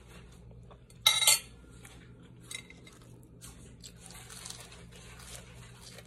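A fork clattering briefly against a dinner plate about a second in, then faint soft sounds of biting into a fried chicken fillet, over a low steady hum.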